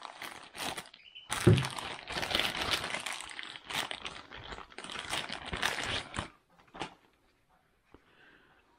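A Velcro pouch flap ripped open in a few quick rasps, then a clear plastic bag crinkling and rustling for about five seconds as the laser is unwrapped from it.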